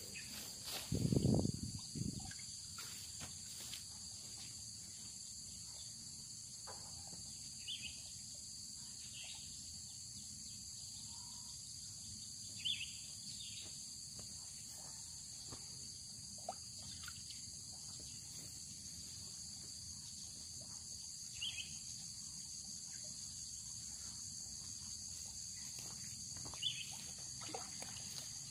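Insects droning steadily at a high pitch in a rural field, with a low thump about a second in and a few faint knocks later.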